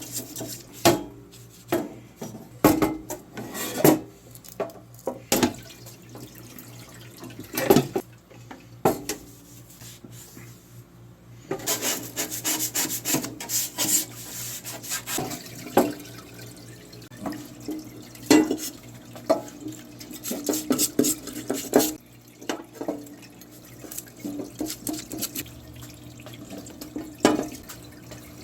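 Scrubbing with a brush in water, in irregular strokes, with a denser stretch of steady scrubbing in the middle. These are parts being washed clean of dirt.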